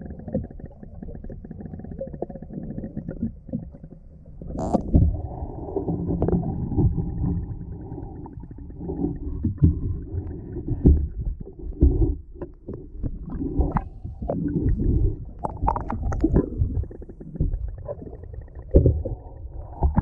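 River water heard through an underwater camera: a muffled low rumble of moving water with irregular dull knocks, the sharpest about five seconds in.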